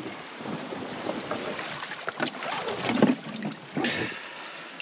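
Water splashing and sloshing against the side of a boat, with wind buffeting the microphone and a few sudden knocks and thumps, the loudest about three seconds in.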